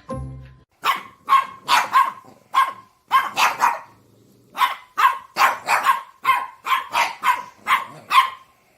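A dog barking repeatedly: about twenty short, sharp barks in two runs, with a pause of about a second in between.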